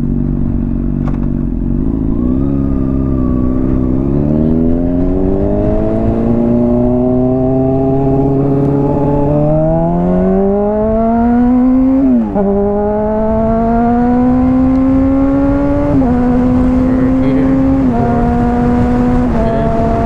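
Honda CBR600RR inline-four motorcycle with a slip-on exhaust, pulling under acceleration with engine pitch rising steadily. About twelve seconds in the pitch drops sharply at an upshift. It then runs at a fairly even pitch, dipping slightly a few times near the end.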